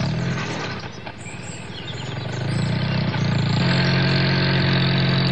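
A motor running with a steady drone that grows louder and settles to an even pitch about halfway through.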